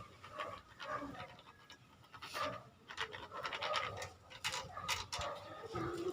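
Faint scraping and scattered light clicks of suspension fork parts being handled as grease is worked onto them by hand.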